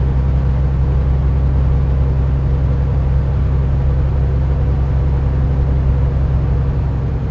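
Semi-truck's diesel engine running at a steady cruise with tyre and road noise, heard from inside the cab: a steady low drone.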